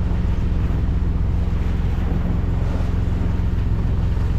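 Sailboat's Yanmar 15-horsepower inboard diesel engine running steadily at cruising speed under way, a constant low drone, with the wash of water and wind over it.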